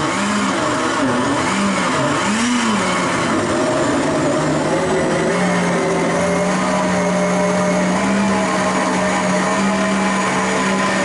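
Countertop blender running, puréeing a green liquid marinade of parsley and wine. The motor's pitch dips and rises several times in the first few seconds as the contents churn, then holds steady.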